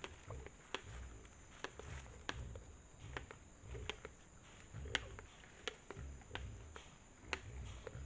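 A herd of peccaries feeding on dry leaf litter: sharp, irregular cracks, one or two a second, over soft low thuds and rustling, the sound of hard corn being chewed and of the animals moving over the leaves.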